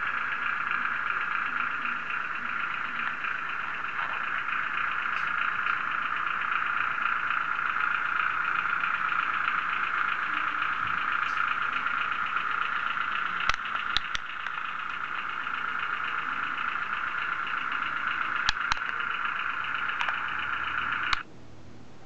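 A steady mid-pitched mechanical buzz with a fast rattling texture, broken by a few sharp clicks, that cuts off suddenly near the end.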